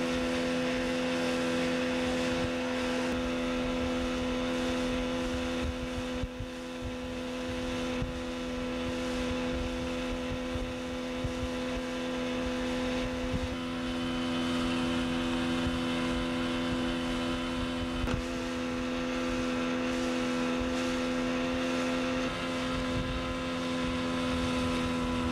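Outboard motor running at a steady speed with the boat under way, a constant unchanging drone.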